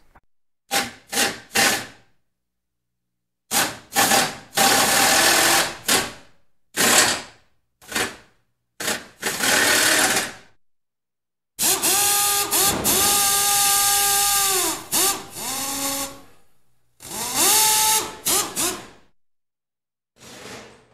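Micro RC car's small electric motor and gear drivetrain spun up in short throttle bursts, a whining buzz that rises, holds and falls back each time. About eight bursts, the longest about four seconds in the middle.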